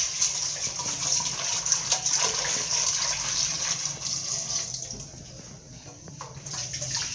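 Kitchen tap running into an aluminium pot as raw beef is washed by hand, the water splashing in the pot. The splashing grows quieter about two-thirds of the way through.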